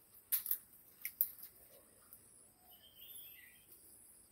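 A few sharp snaps in the first second and a half, then a bird calling with short, falling chirps for about a second.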